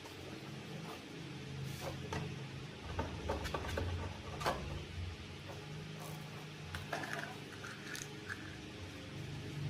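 Scattered sharp clicks and knocks, the loudest about halfway through, over a steady low hum.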